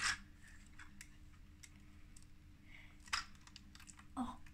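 LEGO bricks clicking and clattering as fingers pull and press pieces on a brick-built model plane: a few separate short plastic clicks, the loudest right at the start and others about one, three and four seconds in.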